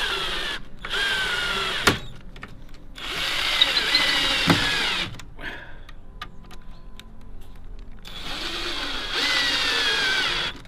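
Cordless drill-driver driving screws into timber in four separate runs. The motor whine sinks in pitch as each screw bites and tightens, with a sharp knock near the end of the second and third runs.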